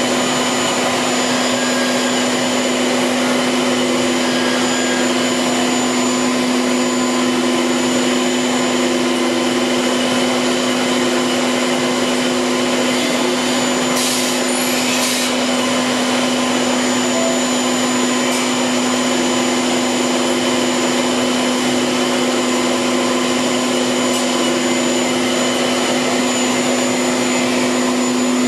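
Haas VF2 vertical machining center running a cut: a steady spindle whine over the hiss of coolant spraying inside the enclosure. Two brief hisses come about halfway through.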